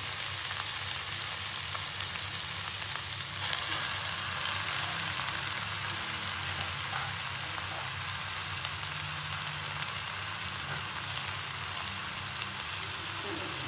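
Cassava leaves frying in hot oil and bumbu genep spice paste in a wok: a steady sizzling hiss with scattered small pops.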